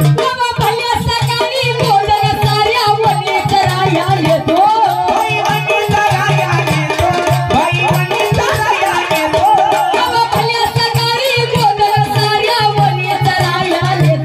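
Live Marathi gavlan folk song: a woman singing an ornamented, wavering melody over steady, rhythmic hand-drum and instrumental accompaniment.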